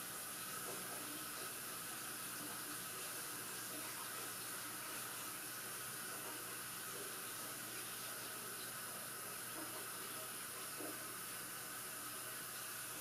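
Steady, even hiss of background noise, with one faint tick late on.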